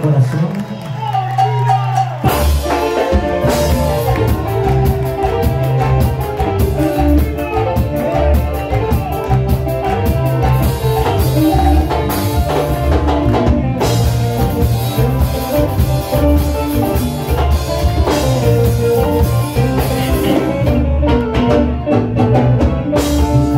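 Live band playing through the PA: electric guitar, drum kit and bass, with the full band coming in on the drums and bass about two seconds in.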